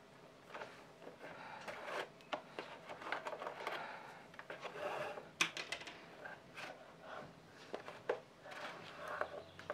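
Hand tools and material being handled on a workbench: irregular small clicks and taps with rustling scrapes between them, the sharpest click about five and a half seconds in.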